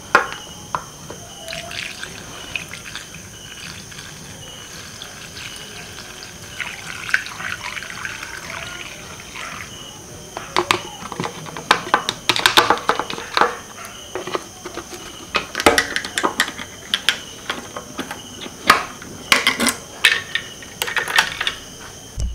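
Petrol poured from a plastic bottle through a funnel into a motorcycle's metal fuel tank, a liquid pour with scattered clicks and knocks as the bottle, funnel and tank cap are handled, busiest in the second half.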